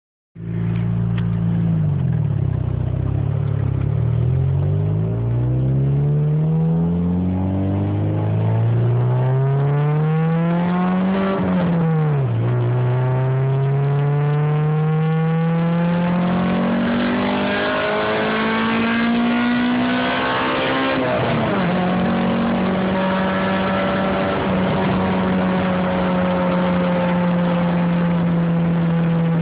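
Honda B16 four-cylinder engine in a 1995 Integra pulling through the gears. Its pitch climbs steadily for several seconds and drops sharply at each upshift, about 12 and 21 seconds in, then holds steady near the end. The car has an exhaust leak at the front.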